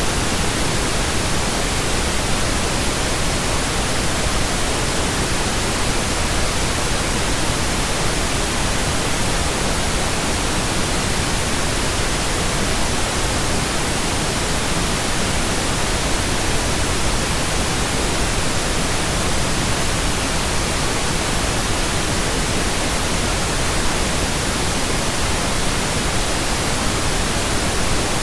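Steady synthetic pink noise: an even, unbroken hiss across all pitches with no tones or changes.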